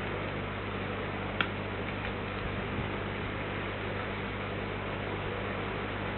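Steady electrical mains hum over an even hiss, with one short sharp click about a second and a half in.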